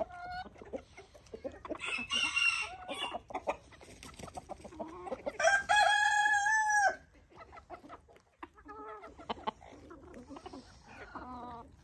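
A flock of backyard chickens clucking and squawking. Partway through a rooster crows, one long held crow lasting about a second and a half, and lighter clucking follows.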